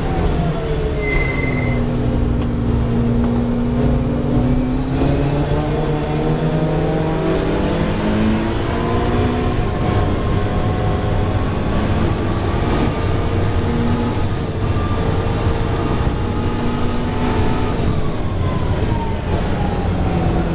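Ferrari 488 Challenge race car's twin-turbo V8 heard onboard at speed. The engine note drops at the start, climbs again a few seconds in, holds roughly steady, then drops once more near the end, with a faint high whine coming and going.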